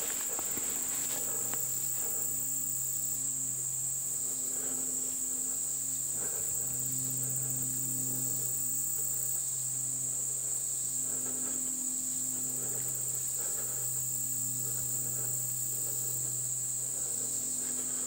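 Steady high-pitched insect chorus, a constant shrill drone of crickets in summer woods.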